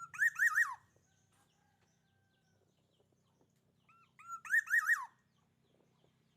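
Kingfisher calling: two short bursts of quick, loud notes, each note rising then dropping in pitch, the second burst about four seconds after the first.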